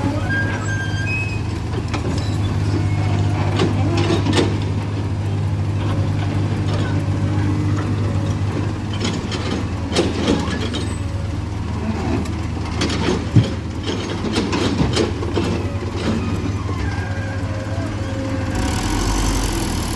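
Heavy diesel engine running steadily, with scattered knocks and clanks over it. A hiss starts near the end.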